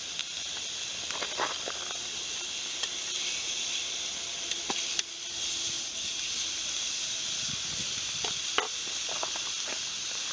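Wood campfire burning: a steady hiss with scattered crackles and light knocks.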